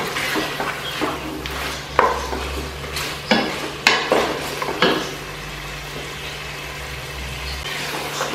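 Wooden spatula stirring and scraping mutton and potatoes in a stainless steel pot, knocking against the pot several times in the first half, over a steady sizzle of frying in oil. This is the bhuna stage, the mixture frying until the oil separates.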